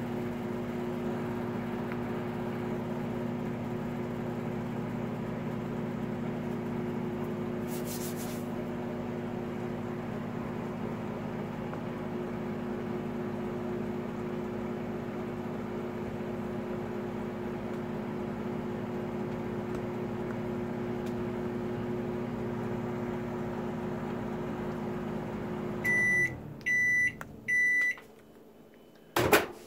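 Magic Chef microwave oven running with a steady hum. About four seconds before the end it stops, and its timer sounds three short high beeps to signal that heating is done. A sharp click follows near the end.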